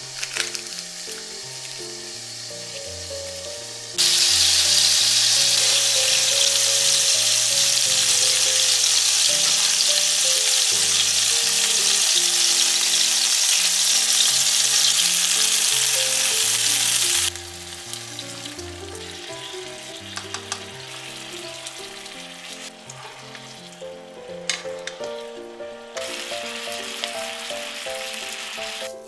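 Hasamiyaki (eggplant slices sandwiching hamburger-steak patties) sizzling loudly in oil in a frying pan. The sizzle starts suddenly about four seconds in and cuts off about thirteen seconds later, then goes on more faintly with a few taps. Background music with a gentle melody plays throughout.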